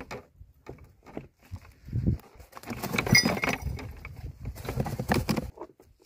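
Handling noise as a hook is worked out of a freshly caught fish by gloved hands: irregular rustling, knocks and light clinks, sparse at first and busier from about two seconds in. The hook is set deep.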